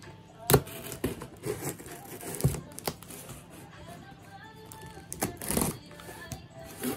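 Scissors cutting and scraping along packing tape on a cardboard box, with sharp clicks and tape tearing. The loudest snap is about half a second in and a longer scrape comes near the end. Soft background music plays underneath.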